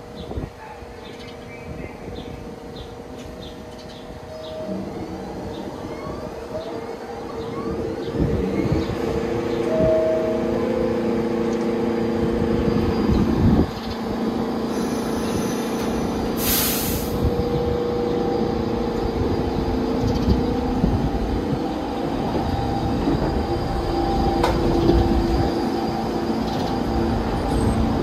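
A New York City subway train running on the tracks. It grows louder over the first several seconds and then stays loud, with steady whining tones and a brief sharp hiss about two-thirds of the way through.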